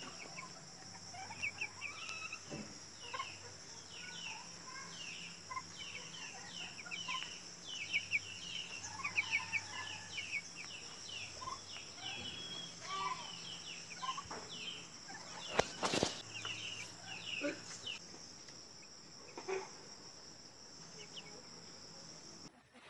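Young chicks peeping: a long run of short, high cheeps, one after another, over a steady high hiss. A single sharp click sounds about two-thirds of the way through.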